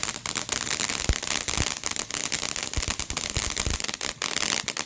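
Fireworks crackling: a dense, continuous run of rapid pops and snaps, with a few low thumps about one and a half seconds in.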